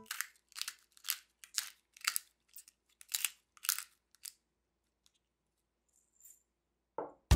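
Pepper mill grinding black pepper onto raw pork cutlets: about ten short grinds, roughly two a second, stopping a little past four seconds in.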